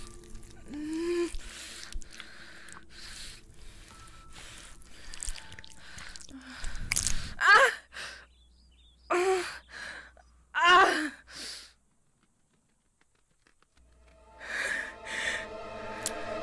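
A woman panting and gasping in pain over a bleeding knee wound, short sharp breaths with a few loud cries that fall in pitch, the loudest about seven and a half and eleven seconds in. The sound drops almost to nothing for a moment near the end before her breathing resumes over a low steady hum.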